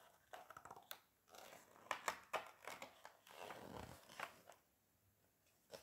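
Faint paper rustling and soft clicks from a hand turning a page of a hardcover picture book, with a longer swish of the page a little before four seconds in.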